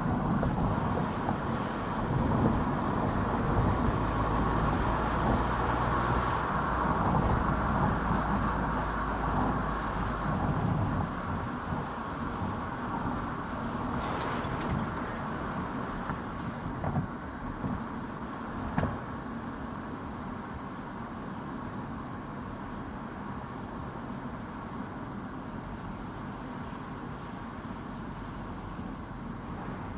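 A car driving along a road: steady engine and tyre noise, easing off a little about halfway through, with a couple of light knocks.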